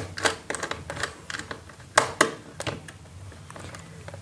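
Irregular small clicks and taps of a screwdriver and wire against the plastic terminal of a DIN-rail circuit-breaker isolator as a wire is fastened in, with the loudest two clicks about two seconds in.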